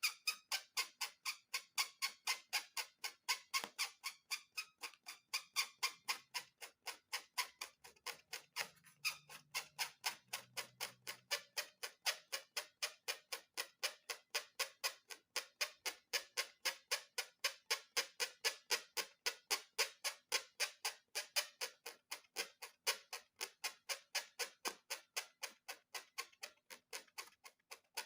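Steady, even ticking, about four sharp clicks a second, with no change in pace.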